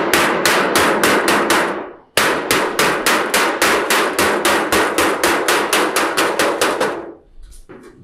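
Rubber mallet tapping rapidly on a painted sheet-metal flashing piece, about five light blows a second, settling a freshly bent-over fold flat. The tapping pauses briefly about two seconds in, then runs on and stops about a second before the end.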